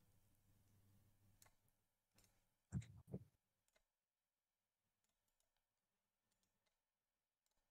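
Near silence with faint, scattered computer-mouse clicks. A short, low double sound comes about three seconds in.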